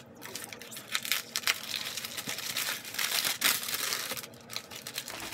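Brown kraft paper wrapping crinkling as a hand crumples and unwraps it, a dense, irregular crackle that builds about a second in and is loudest past the middle, with a short lull near the end.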